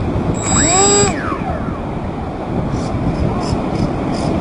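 Electric RC model plane motor briefly throttled up and back down, a short rising and falling whine with a thin high electronic whine during the run. It is heard over steady wind and surf noise.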